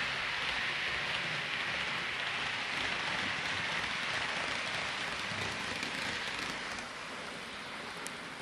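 Hornby Class 390 Pendolino OO gauge model train running along the track: a steady rushing whir of wheels on rail and motor, a little quieter about seven seconds in.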